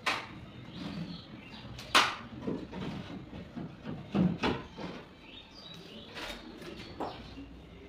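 Putty knife tapping and scraping against a small plastic putty cup and the gypsum ceiling: a handful of sharp clicks and scrapes, the loudest about two seconds in and a quick cluster around four seconds in.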